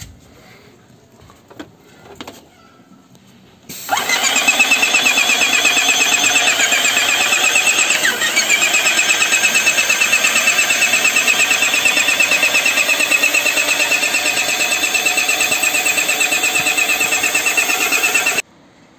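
Electric airless paint sprayer pump starting abruptly about four seconds in and running hard with a rapid, even pulsing while paint is sprayed through the gun, then cutting off suddenly near the end. A few small clicks come before it starts.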